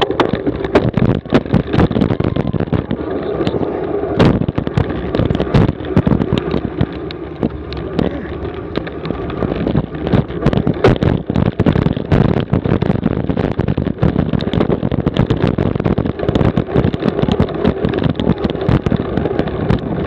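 Cyclocross bike and its mounted camera rattling and knocking as the bike bounces over a bumpy grass course, with rapid irregular clatter over a steady rush of tyre and wind noise.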